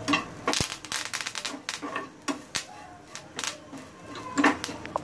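Metal spatula scraping and tapping against a pan while stirring dry-roasting grated coconut, sesame seeds and curry leaves: irregular clicks and scrapes.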